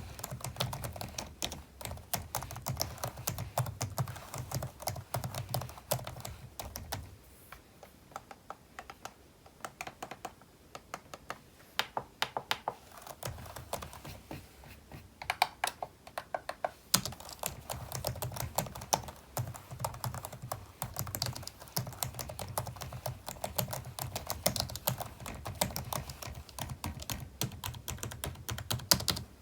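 Typing on a computer keyboard: a dense run of key clicks, easing to sparser, lighter clicks for several seconds in the middle before the fast typing picks up again.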